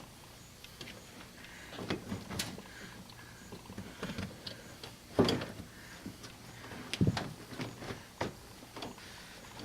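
Old car carpet being pulled up off the floor pan: scattered rustles, scrapes and knocks, loudest about five and again about seven seconds in.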